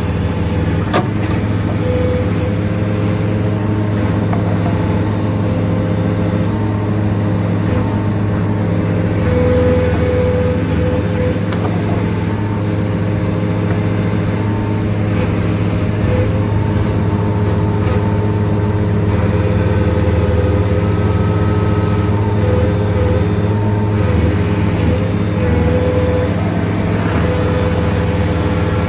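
Large Hitachi Zaxis 490 LCH excavator working at sheet pile driving: a steady, deep machine hum with a higher hydraulic-sounding whine that comes and goes every second or two.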